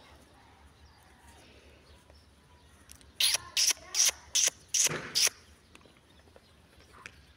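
Boerboel puppies yipping during rough play: about three seconds in, six short, sharp, high-pitched yips come in quick succession over two seconds.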